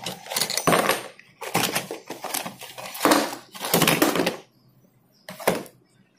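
Rustling and clattering of a Beyblade box and its plastic and metal parts being unpacked onto a table, irregular handling noise for about four seconds, then one short clack.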